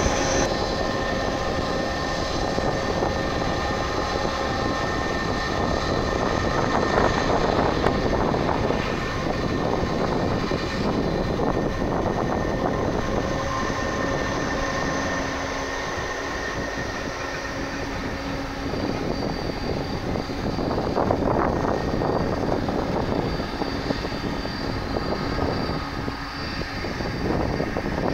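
Airbus A300 freighter's jet engines running at low, taxiing power: a steady jet rumble with several thin whining tones on top, swelling slightly around twenty seconds in.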